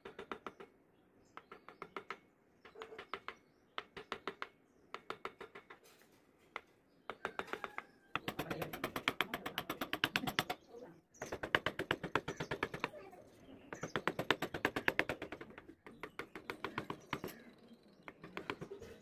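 Wood carving chisel driven into a softwood board by quick taps of the hand on its handle: runs of rapid sharp clicks, about ten a second, in groups of a second or so. The groups grow longer and louder through the middle.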